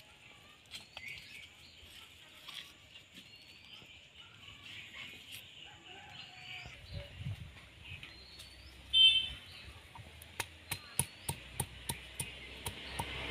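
Small birds chirping faintly, with one short louder call about nine seconds in. From about ten seconds in, a stone roller knocks down onto ginger on a flat grinding stone, sharp taps about twice a second, crushing it before grinding.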